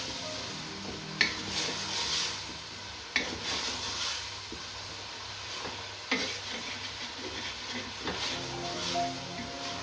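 Chicken mince sizzling as it fries in a stainless steel pot, stirred with a spatula that scrapes and knocks against the pot four times, about every two seconds.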